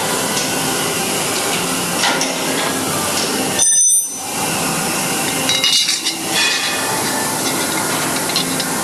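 Steady workshop machinery noise with metal clinks from tools on the crusher: one ringing clink about three and a half seconds in, then a few more about two seconds later.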